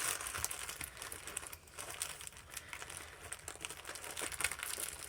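Plastic bags and wrappers of first aid supplies crinkling and rustling irregularly as they are squeezed into a small kit pouch and pressed closed.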